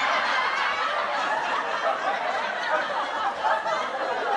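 Canned audience laughter, many voices laughing together in reaction to a joke's punchline.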